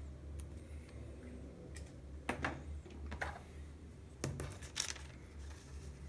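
A few light clicks and paper rustles from handling a torn paper page on a countertop, scattered through the middle seconds, over a steady low hum.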